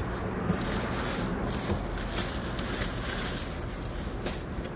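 Rustling and rubbing of packaging, with a few light knocks, as the bottom of a shipping box is searched for a cardboard container of paper prints.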